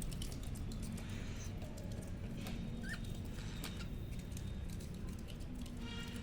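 Budgerigars moving and pecking about, with scattered clicks and scratches, a short rising chirp about three seconds in and another brief call near the end, over a steady low hum.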